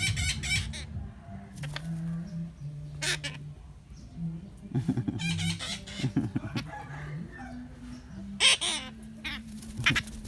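Parrot giving a series of short, harsh, clucking squawks a second or two apart, chicken-like in character.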